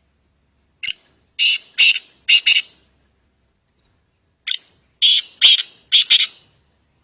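A black francolin calling: two loud, harsh, rhythmic phrases of about five grating notes each, the first about a second in and the second about halfway through.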